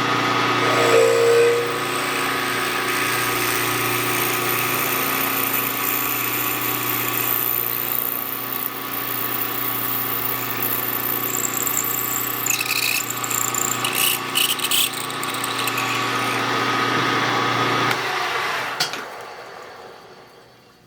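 Milling machine spindle running while a .242-inch drill cuts through a metal part, opening the hole to leave about 4 thou per side for reaming, with a few short high squeaks from the cut. Near the end the spindle is shut off and winds down.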